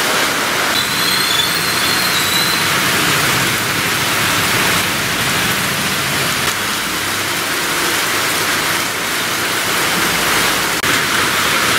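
Heavy monsoon rain pouring steadily onto a street, a dense, even hiss of falling water. A faint high tone sounds briefly about a second in.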